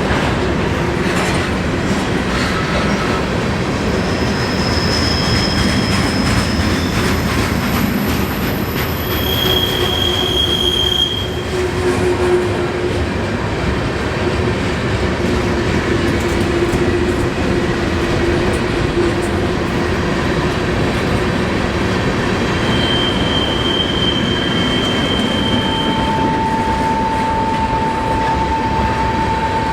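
CSX freight train rolling past, a steady rumble of wheels on rail broken by thin wheel squeals that come and go: high-pitched ones in the first half and around two-thirds of the way through, and a lower, held squeal over the last few seconds.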